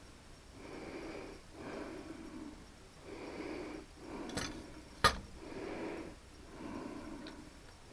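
A person's heavy breathing close to a headset microphone, in and out about once a second. Two sharp knocks about four and five seconds in, the second the loudest.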